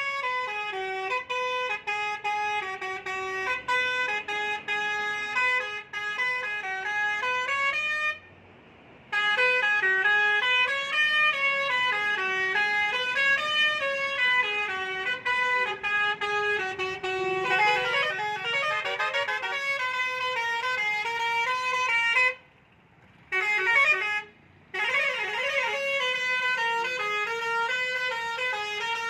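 Truck's musical horn playing a melody in short stepped notes, with two tones crossing at times; it cuts out for about a second some eight seconds in and twice more briefly near the end.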